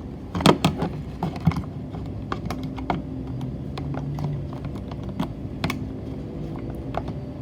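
Small clicks and rattles of plastic and metal handling, densest in the first second and a half and then scattered, as push-on wire connectors are wiggled off the switch terminals on a Vitamix 7500 blender's control board.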